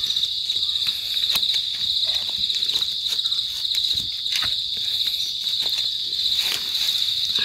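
A steady, high-pitched chirring of forest insects, pulsing rapidly without a break. Light crackles and rustles of dry leaf litter come through now and then as a wild mushroom is dug out of the forest floor by hand.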